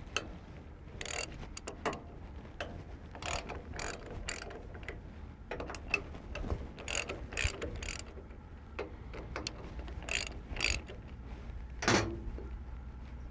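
Hand socket ratchet clicking in short, irregular runs as the bolts of a Cat hydraulic excavator's return filter cover are loosened and backed out, with one louder metal clink near the end.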